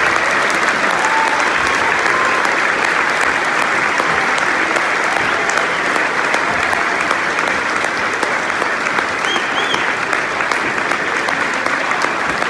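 Large audience applauding steadily, a dense continuous clapping that eases slightly toward the end, with a couple of brief high calls from the crowd about nine seconds in.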